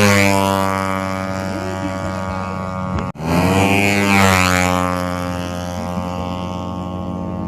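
Motorcycle engine droning at a steady high pitch, with a sweeping whoosh as it passes close. It breaks off abruptly about three seconds in and starts again with a second pass.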